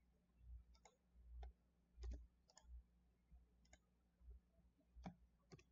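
Faint, irregular clicks of a computer mouse and keyboard, about half a dozen spread through a near-silent stretch, the clearest about two seconds in and again near five seconds.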